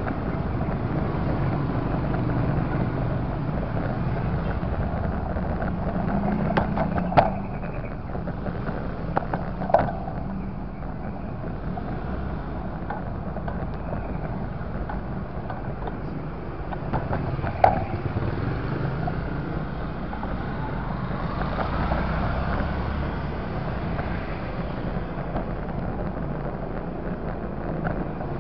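Motorcycle riding along a street: a steady engine and road rumble with wind noise on the microphone, broken by a few sharp knocks, and a faint rising whine about three quarters of the way through.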